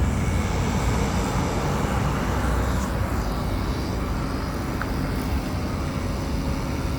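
Steady low rumble of outdoor urban background noise, mostly road traffic, with no distinct events.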